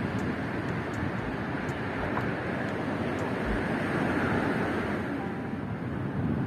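Ocean surf washing steadily.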